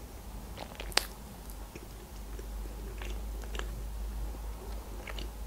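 A person chewing food with the mouth closed, close to the microphone: quiet, scattered mouth clicks, with one sharper click about a second in.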